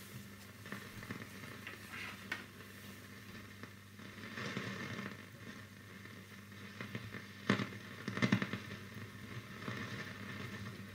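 TeKaDe W367K valve radio on its shortwave IV band giving crackling static and hiss from its speaker while being tuned, with no station coming in. A faint low hum runs underneath, and a few sharper crackles come past the middle.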